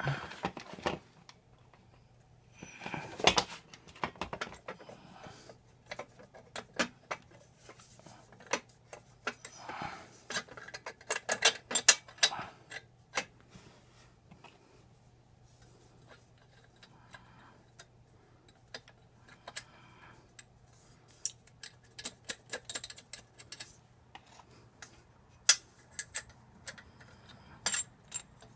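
Irregular light metallic clicks and clinks of a titanium exhaust header and its flange nuts being handled and fitted by hand, with a few short scraping sounds.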